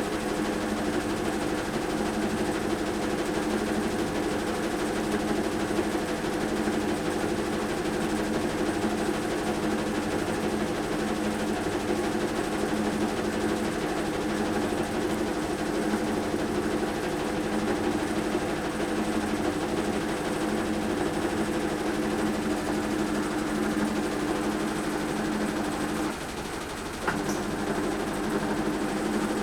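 Washing machine in its spin cycle making a loud, steady abnormal mechanical drone with a faint pulsing beat, dipping briefly about 26 seconds in and then resuming. It is the fault noise that the owner hears only during spinning.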